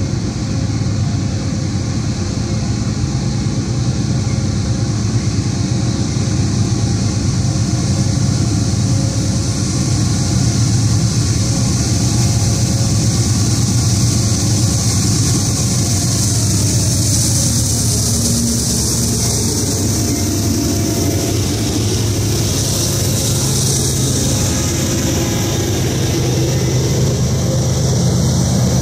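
Several diesel locomotives at the head of a Norfolk Southern freight train running past close by, a loud steady engine drone. About halfway, a tone falls in pitch as the lead units go by, and a rising hiss of wheels on rail follows from the passing freight cars.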